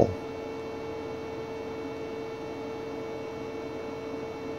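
Steady electrical hum at one unchanging pitch over a faint hiss.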